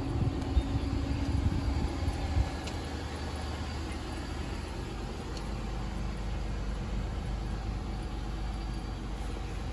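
Low, steady vehicle rumble. It is uneven and somewhat louder for the first couple of seconds, then settles.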